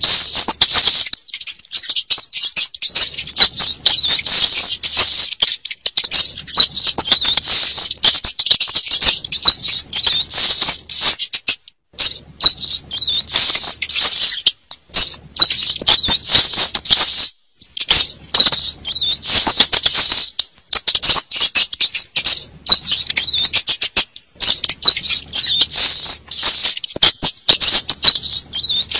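Rats squeaking and chittering: dense runs of rapid high-pitched squeaks in bouts of a few seconds, broken by short pauses. This is a rat lure call meant to attract rats.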